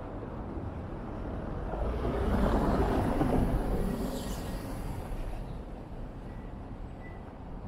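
A vehicle passing close by on a street: its noise swells to a peak about three seconds in and then fades away. A faint thin high tone appears near the end.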